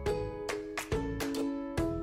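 Background music: a light tune of plucked notes on a steady beat.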